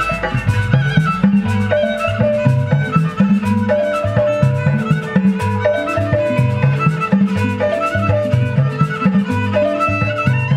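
Live traditional Betawi silat accompaniment: hand drums beat a fast repeating rhythm under a short melodic phrase that keeps coming round and a high sustained melody line.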